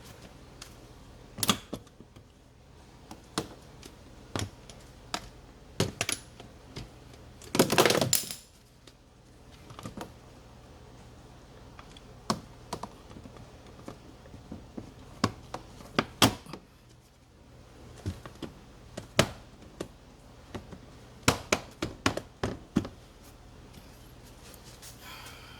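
Irregular sharp clicks and light knocks from tools and parts being handled during car battery work, with a short clattering burst about eight seconds in.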